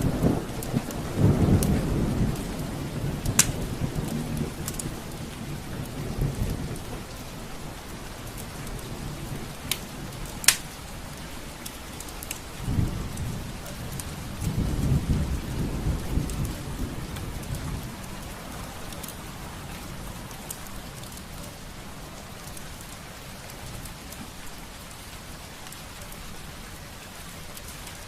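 Steady rain with rolling thunder rumbling at the start and again about midway. A few sharp pops, the loudest about ten seconds in, fit a crackling wood fire.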